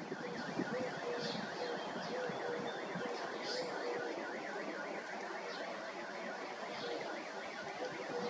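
An electronic alarm siren warbling, its tone rising and falling rapidly about four to five times a second, with a short lower beep repeating about once a second.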